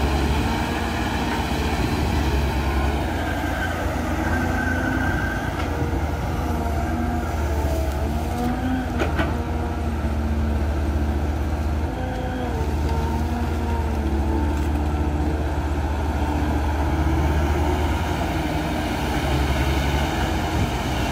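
Caterpillar tracked excavator's diesel engine running under load while digging, a steady low drone with a wavering whine above it and a knock about nine seconds in.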